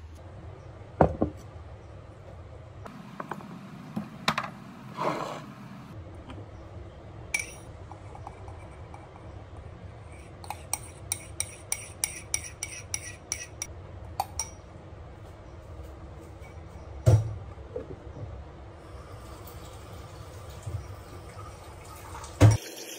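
Kitchen handling sounds: cups, dishes and cutlery clinking and knocking, with liquid being poured. In the middle comes a run of light, evenly spaced taps, about four a second, and there are louder knocks about a second in, about 17 s in and near the end.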